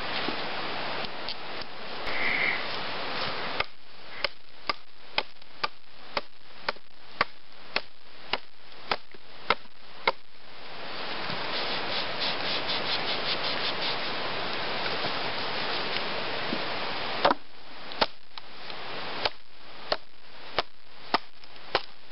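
Woodsman's Pal's steel blade chopping into a rotten log: a run of sharp strikes about two a second, then slower, more spaced strikes near the end. A steady buzzing hiss fills the pauses between the runs of strikes.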